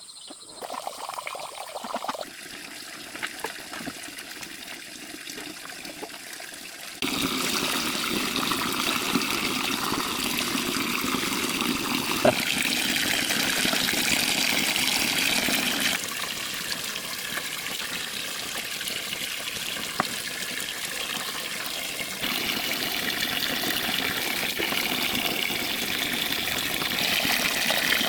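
Running, splashing water, in several stretches that change abruptly in loudness and character, with a single sharp click partway through.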